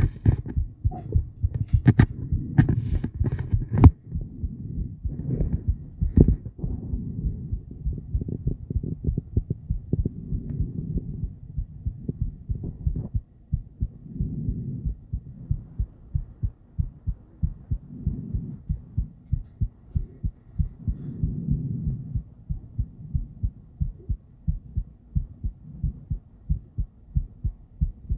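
A woman's heartbeat picked up by an ultrasonic Doppler device and played through its speaker: an even, continuous run of low pulses. There are sharp clicks and knocks in the first four seconds, and slower swells come every few seconds later on.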